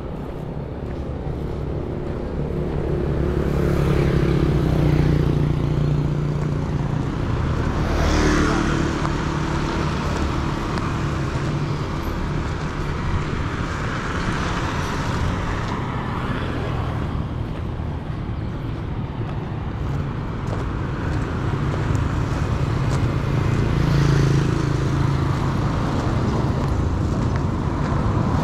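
Street traffic: motor vehicles passing one after another, their engines swelling and fading as each goes by, with a steady hum of the street underneath.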